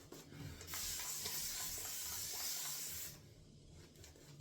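A steady hiss lasting about two and a half seconds that cuts off suddenly, over faint rubbing from a shaving brush working the soap.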